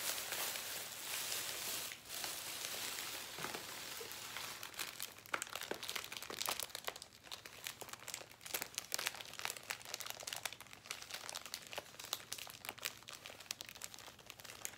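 A bag and a packet of balloons crinkling as they are handled. A dense rustle for the first couple of seconds gives way to many sharp crackles.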